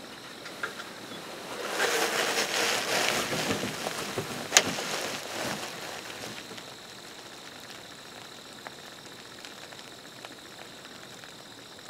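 Rustling noise for about four seconds, with a single sharp click partway through, over a faint steady hiss.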